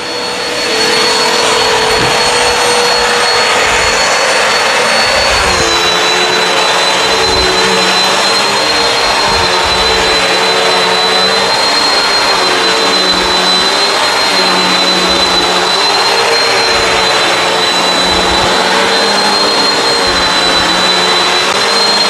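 Bissell CleanView Swivel Pet upright vacuum running: a steady rush of air with a high motor whine. The whine dips slightly in pitch about five and a half seconds in and then holds.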